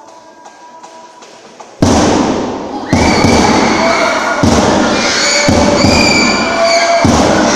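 A faint held group hum, then about two seconds in a sudden loud thud opens a run of repeated heavy thuds of performers stamping and dropping onto a stage floor, mixed with many voices crying out at high pitch.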